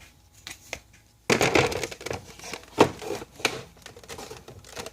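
Plastic packaging crinkling and rustling as it is handled, with sharp clicks and a few louder crackles, starting about a second in.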